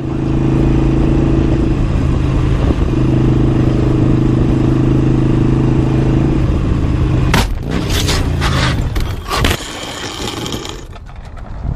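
An engine drones steadily at road speed. About seven seconds in, a motorcycle goes down, giving a run of loud crashes and metal and plastic scraping along the pavement for about two seconds. A quieter rumble follows and fades.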